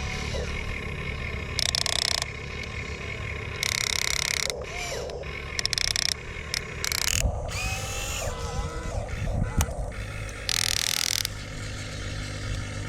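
Small electric motors and gearboxes of remote-control construction models running, with a steady low hum. Loud hissing whirs start and stop sharply about five times.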